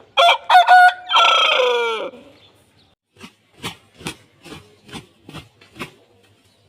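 Aseel rooster crowing once: three short notes then a long note that falls in pitch. This is followed by a run of about eight short, sharp sounds, roughly two a second.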